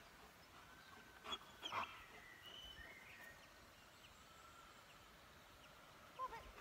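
Near silence outdoors, with a few short, distant bird chirps scattered throughout and two brief knocks about a second and a half in.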